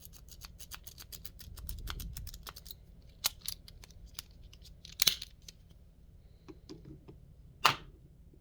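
Snake rake being raked in and out of a lock: a fast run of small metallic clicks for about three seconds, then scattered clicks, with two louder sharp clicks about five and seven and a half seconds in.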